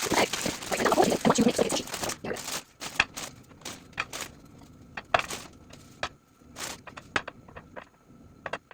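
Packaging crinkling and rustling for about two seconds, then scattered light clicks and taps as things are handled and set down.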